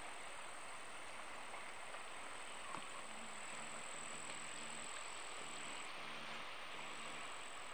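Steady outdoor ambience: an even hiss with a thin, high, steady buzz over it. From about three seconds in, a faint low hum comes and goes in short stretches.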